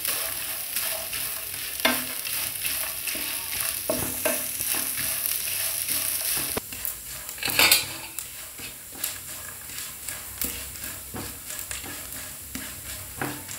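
Chopped coconut pieces sizzling in hot ghee in a pan, stirred with a wooden spatula that scrapes and knocks against the pan. The sizzle drops away sharply about halfway through, leaving mostly spatula scrapes, the loudest a little after that.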